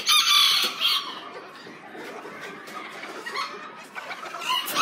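Miniature bantam chickens calling in their cages: a loud, shrill squawk in the first second, fainter calls through the middle, and another shrill call near the end.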